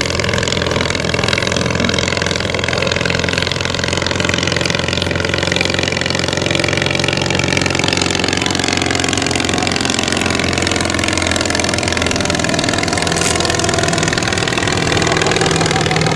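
The English Electric Wren's small ABC flat-twin engine running steadily, a buzzy motorcycle-like note whose pitch drifts gently up and down.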